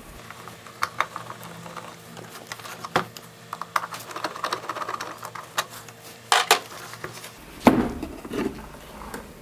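Small clicks, taps and rattles of a loudspeaker amplifier's casing and screws being handled while it is taken apart, with a few louder knocks about six and a half and eight seconds in.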